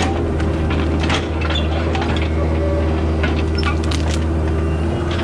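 Skid steer's diesel engine running steadily under work, with scattered metallic clanks and rattles, the loudest about a second in and again around three to four seconds in.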